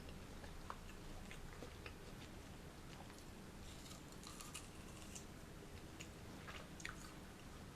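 Close-miked chewing of fresh fruit: soft, wet bites and mouth clicks, scattered and faint, busiest about four to five seconds in and again near seven seconds.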